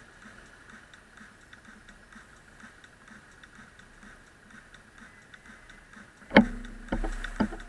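Faint, rapid, regular ticking, then about six seconds in three sharp knocks or clacks, the first much the loudest.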